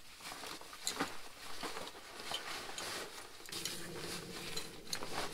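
Soft rustling of waterproof wader fabric with scattered small clicks, as a pair of chest waders is handled and pulled on.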